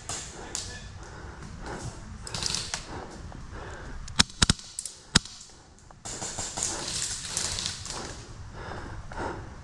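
Three sharp shots from an HPA-powered airsoft gun: two in quick succession about four seconds in, and a third just under a second later.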